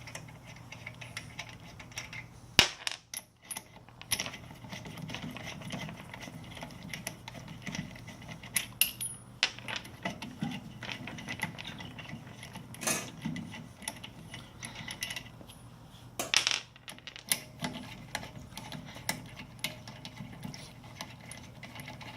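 Lug nuts being unscrewed from a jacked-up car's wheel with a tire iron: irregular metallic clinks and rattles of the nuts and tool, with a few sharper clanks.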